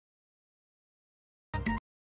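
Dead silence, broken about one and a half seconds in by a quarter-second snippet of music with steady pitched notes that cuts off abruptly with a click.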